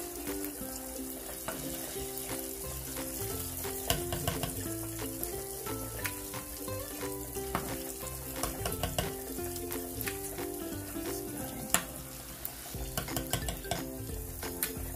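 Hot oil sizzling steadily as fried chicken wings are lifted out of the deep-fry oil, with scattered sharp clicks of a metal slotted spoon against a wire cooling rack. Background music plays underneath.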